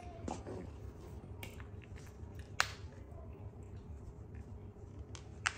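Baby monkey eating pomegranate seeds from a plate: small wet clicks and smacks of lips and chewing, with two sharper clicks, one about two and a half seconds in and one near the end, over a low steady hum.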